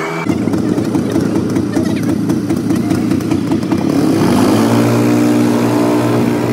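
Go-kart's small engine running close under the rider. It sounds rough and rattly at first, then about four seconds in it picks up to a steady, higher engine tone as the kart accelerates.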